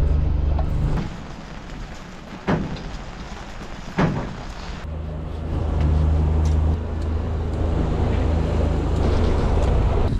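Honda outboard motor driving a pontoon boat, running at a steady low pitch. About a second in it fades away and two sharp knocks are heard; the engine note comes back about five seconds in and runs on steadily.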